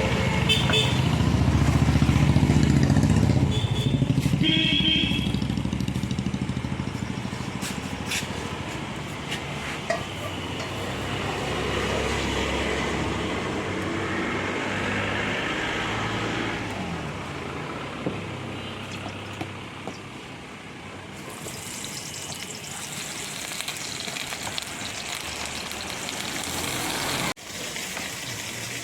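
Street traffic with a vehicle rumbling past in the first few seconds and short horn beeps, over the steady sizzle of chicken frying in a pan. The sizzle grows brighter in the last seconds, then cuts off abruptly.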